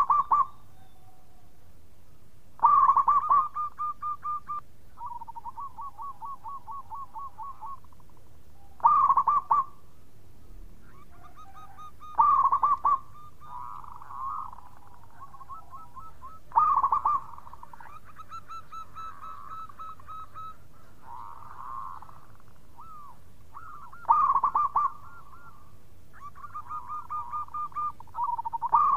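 Zebra dove (perkutut) cooing: about six loud phrases, each opening with a quick burst of notes and trailing into a long run of fast, softer staccato coos. Fainter calls fill the gaps between some phrases.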